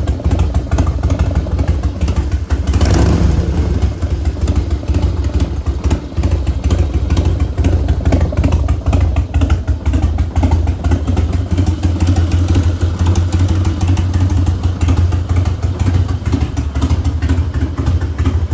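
Harley-Davidson Twin Cam 88 V-twin idling through a Bassani exhaust, with a short blip of the throttle about three seconds in, then settling back to a steady idle.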